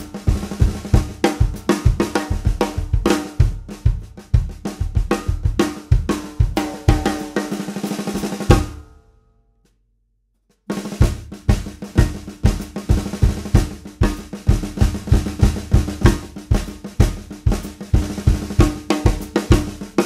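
Drum kit groove on a Pearl Session Studio Select 14x5.5 birch-mahogany snare with coated heads, backed by bass drum kicks on a steady beat. The first groove is played with a fur damper on the snare head. It fades out about nine seconds in, followed by two seconds of silence, then a second groove starts with the fur damper removed.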